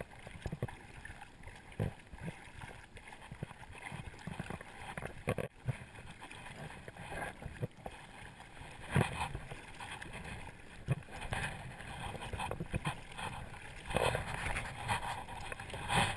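Water splashing and sloshing around a float tube as a hooked wels catfish is fought at the surface, with scattered knocks and rustles from handling the spinning rod and reel.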